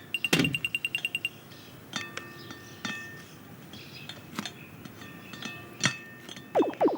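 Animated-film foley: a rapid string of light clinking ticks, about ten a second, then a brief ringing tone, a few sharp clicks, and quick falling swoops near the end.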